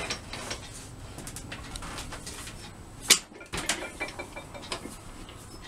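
Clicks and knocks of a wood lathe's tailstock being brought up and clamped to hold an oak blank between centres, the loudest a single sharp click about three seconds in.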